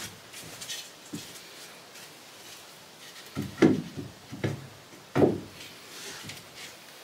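Wooden battens knocking against the van's sheet-metal body as they are handled and fitted: a few dull thuds, two of them louder in the second half.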